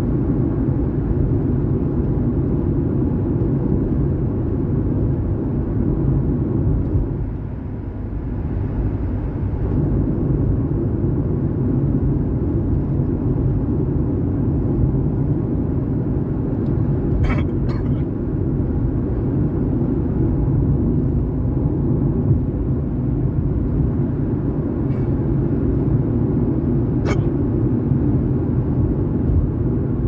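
Steady road and engine rumble inside a moving car's cabin. Three short sharp clicks cut through it: two close together a little past halfway, and one near the end.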